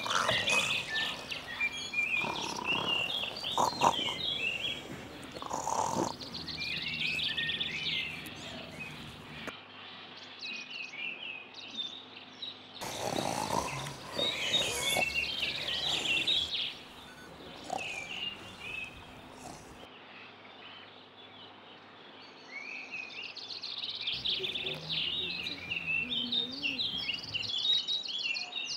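Small birds chirping and twittering in quick, repeated short calls. A few brief louder noises come in between.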